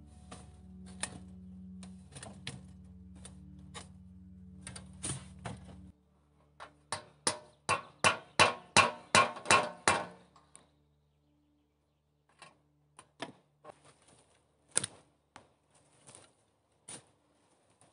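A run of about a dozen sharp knocks, about three a second, from a hatchet hammering at the base of a chimney pipe. Before it come light scrapes and pats of hands packing sand over a low steady hum, and after it sparse soft taps of shovelled earth landing.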